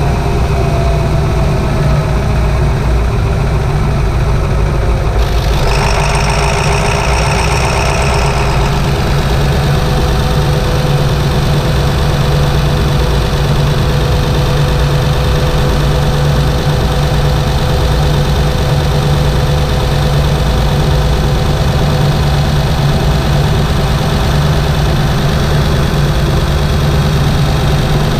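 A 7.3 L Powerstroke turbocharged V8 diesel running steadily, heard from under the hood. About five seconds in, a higher-pitched whine rises over the engine for about three seconds, then fades.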